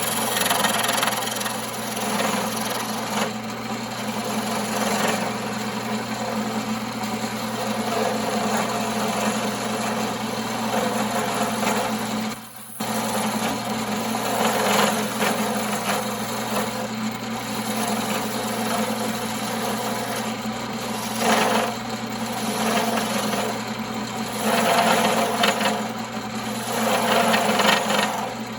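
1939 Pow-R-Kraft wood lathe running with a steady motor hum while a hand tool cuts into spinning firewood. The scraping cut swells and eases again and again, and the sound drops out briefly about halfway through.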